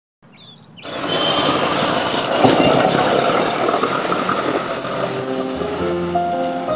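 Street traffic with an auto-rickshaw's small engine running past. About five seconds in, slow held notes of background music come in over it.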